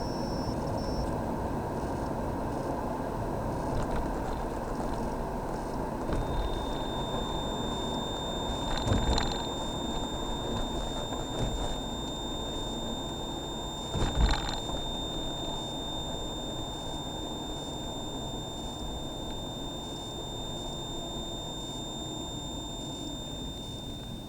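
Car interior road and engine noise, with a thin, steady high-pitched whine from behind the dashboard's central AC console coming in about six seconds in. It is the intermittent whine that appears when coasting or braking, not from the audio system. Two brief thumps come around nine and fourteen seconds in.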